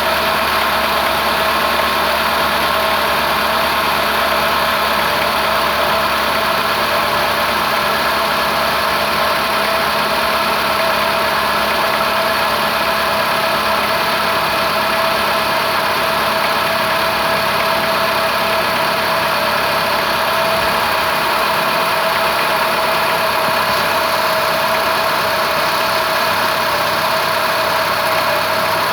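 Renault Logan 1.6 8v four-cylinder engine idling steadily, with a light metallic tapping in the background, like a pin striking metal but not strong. The owner says the noise comes only on a cold morning start and goes away once the engine warms up; mechanics told him it is normal.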